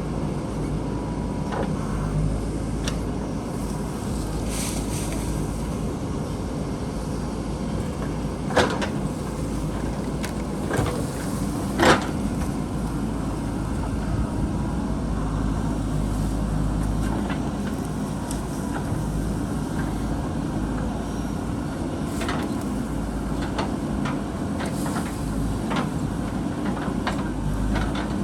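JCB backhoe loader's diesel engine running steadily as it digs, with a few sharp clanks from the machine, three standing out between about eight and twelve seconds in, the loudest near twelve seconds.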